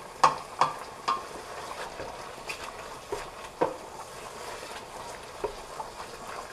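Squid in sauce sizzling in a steel pot while a wooden spoon stirs it. Several short knocks and scrapes of the spoon against the pot rise over the steady sizzle, the clearest in the first second.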